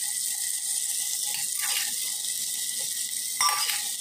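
Sliced onions sizzling in hot ghee in a steel pressure cooker, a steady hiss, with a spatula scraping against the pot a few times.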